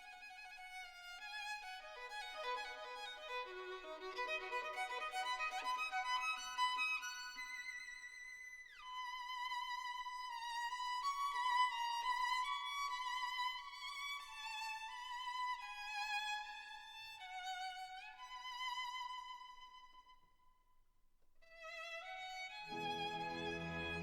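Background music led by a solo violin melody with vibrato. It fades down about 20 seconds in, and a fuller accompaniment with lower notes joins near the end.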